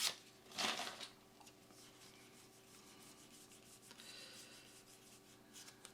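Trading cards sliding and rubbing against each other as they are handled: a short swish about half a second in, then faint rubbing over a low steady hum.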